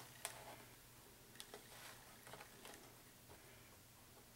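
Near silence, with a few faint, scattered taps as a large metal square is shifted across cardboard.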